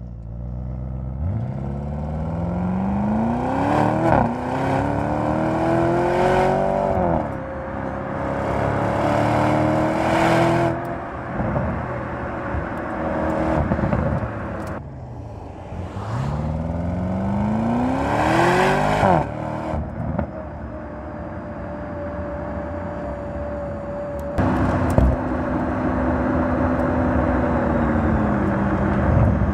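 Audi RS Q8 Performance's 4.0-liter twin-turbocharged V8 accelerating hard several times, its pitch climbing steeply through each gear and dropping at the shifts. Near the end it settles into a steadier, even drone.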